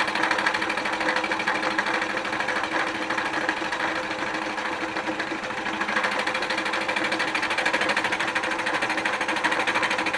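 Milling machine cutter taking a face cut across a cast-iron manifold: a steady motor hum under a fast, even chatter of the cutter on the iron.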